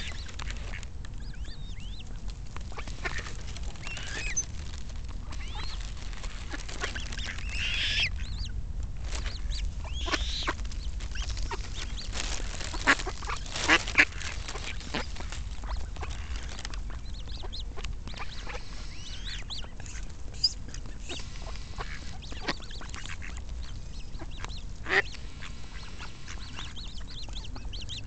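Mallards quacking and Eurasian coots calling in scattered short calls. A few louder, sharp calls come about halfway through and once near the end.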